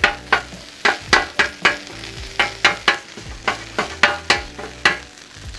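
Metal griddle chopper striking the steel cooktop of a Blackstone griddle again and again, about three uneven chops a second, as potatoes and chorizo are chopped into a fine dice. Frying food sizzles underneath.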